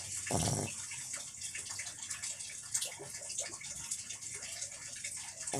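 Snoring in deep sleep: one short snore about half a second in, and another starting near the end with a falling pitch, over a steady hiss.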